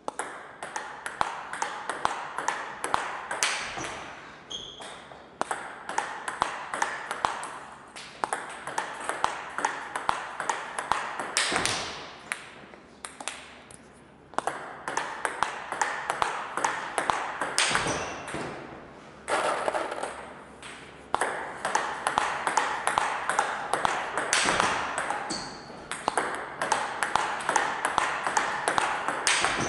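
Table tennis rallies: the ball clicks sharply on the table and on the rubber-faced rackets in quick succession, blocks answered by smashes, in runs of a few seconds with brief breaks between rallies. The hits ring in the hall.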